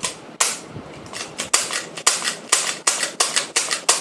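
Plastic clicks and clacks from a Nerf Maverick toy blaster being handled and worked: about a dozen sharp clicks, irregularly spaced and coming faster in the second half.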